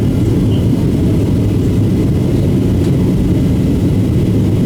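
Steady low rumble of a Boeing 737-700 heard from inside the passenger cabin in flight: its CFM56-7B engines and the airflow over the fuselage.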